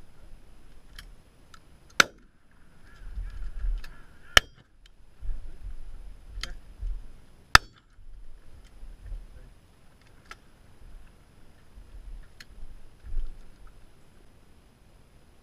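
Shotgun shots: three sharp, loud cracks a couple of seconds apart, with several fainter cracks in between, and wind buffeting the microphone.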